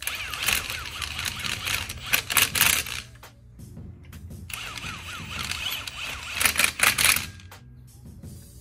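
Cordless impact wrench driving lug nuts onto new wheel studs, in two runs: one for about three seconds, the next starting about four and a half seconds in. Each run whirs up and ends in a loud burst of rapid hammering as the nut seats tight.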